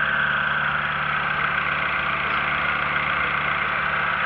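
Engine of the Rastrojero Racemaster idling steadily, which its owner says is an inline eight-cylinder.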